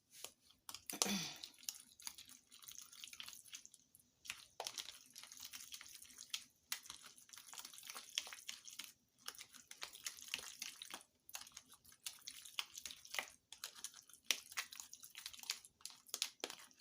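Lemon juice dripping and splashing in small wet clicks as lemon halves are squeezed by hand and the seeds are fished out of the juice.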